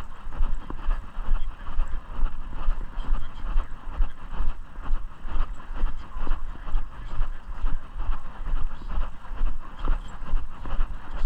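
Wind rumble and handling noise on a moving microphone, pulsing evenly about two to three times a second in time with walking steps.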